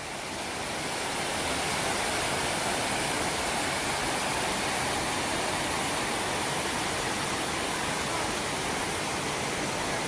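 Waterfall cascading over rock steps: a steady rush of falling water that swells up in the first second or two and then holds even.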